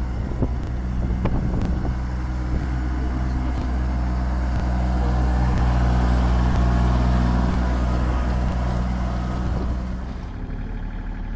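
Kioti CK35 compact tractor's diesel engine running steadily while its rear-mounted rotary sweeper brush scrubs a dirt surface, with a few sharp clicks in the first couple of seconds. The sweeping noise grows louder as the tractor passes close about halfway through, then the sound changes abruptly near the end.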